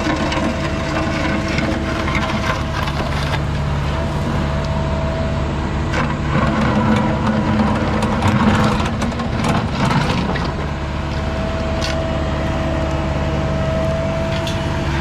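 Diesel engine of a compact earthmoving machine running steadily under load, with a steady whine and scattered knocks and clatter from the working bucket and dirt.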